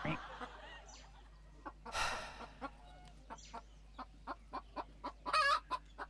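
Hens clucking in a run of short, evenly spaced clucks, with a brief noisy burst about two seconds in and a longer wavering call near the end.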